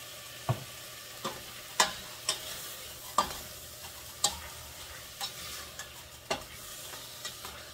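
Beef pieces sizzling in a stainless steel pot as they are stirred with a spatula, with irregular sharp knocks of the spatula against the pot.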